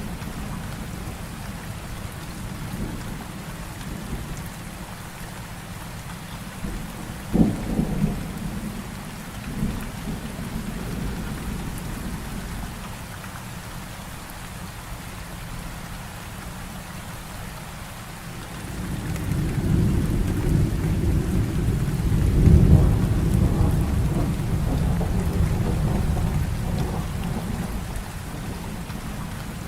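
Heavy rain falling steadily, with a sharp clap of thunder about a quarter of the way in and a smaller one soon after. Through the second half a long rolling rumble of thunder builds, peaks, and slowly fades.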